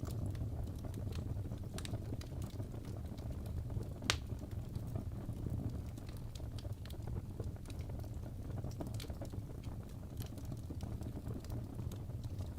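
Fireplace fire crackling over a steady low rumble of flame, with scattered sharp pops and one louder pop about four seconds in.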